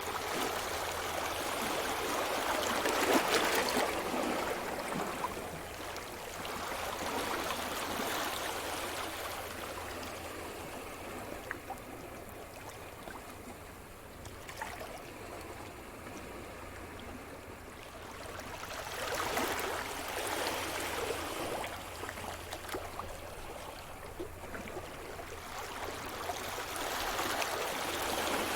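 Surf washing on a shore: waves break and wash up in slow swells, the loudest a few seconds in, then again around a third of the way through and near two-thirds, with quieter fizzing water between.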